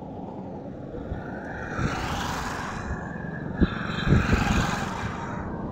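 Highway traffic: two vehicles pass one after the other, each a swell of engine and tyre noise that rises and fades. A few low thumps come in the middle.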